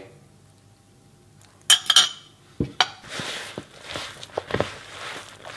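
A fork clinking against a mixing bowl, a few sharp clinks about two seconds in, then scraping and clicking as the fork works wet, sticky scone dough.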